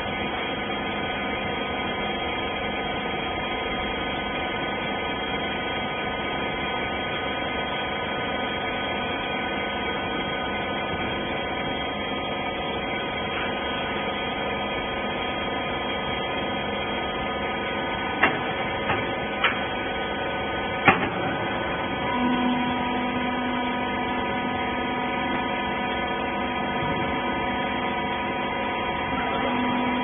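Hydraulic rag baler's motor and pump running with a steady hum. A few sharp knocks come about two-thirds of the way through, and a slightly louder tone joins soon after.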